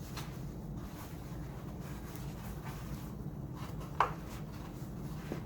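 Toilet paper rolls being handled, with faint paper rustling and scraping over a low hum, and a single sharp knock about four seconds in.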